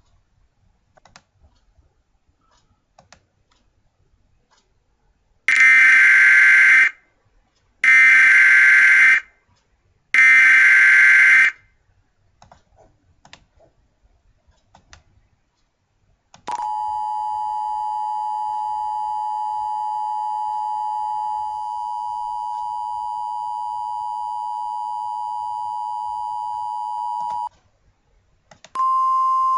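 Emergency Alert System signal: three short bursts of the warbling digital header, each about a second and a half long, then the steady two-tone attention signal for about eleven seconds, which cuts off. A single steady tone begins near the end.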